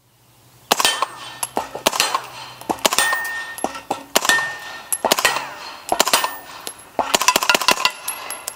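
Spikes Tactical Brown Recluse integrally suppressed 9mm carbine firing a long string of rapid shots, beginning about a second in. Each shot is a sharp, subdued crack, and many are followed by a ringing clang from steel targets being hit.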